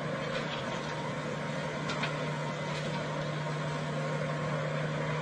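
Steady engine hum holding one low tone, with a few faint ticks over it.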